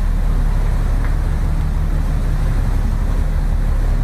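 Steady low drone of a container ship's machinery under way, an even hum with no change.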